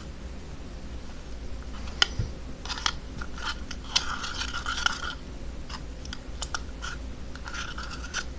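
Homemade slime being mixed and worked, giving irregular wet, sticky clicks and crackles, with the sharpest click about two seconds in and a longer crackly stretch around four to five seconds.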